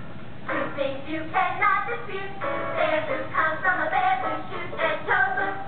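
A musical-theatre song playing, with voices singing over the accompaniment; the singing comes in about half a second in after a short lull.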